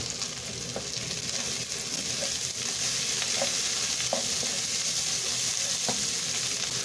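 Omena (small dried fish) frying with tomatoes, onions and coriander in an oiled non-stick pan, sizzling steadily while a wooden spoon stirs and scrapes through it, with a handful of light taps of the spoon against the pan.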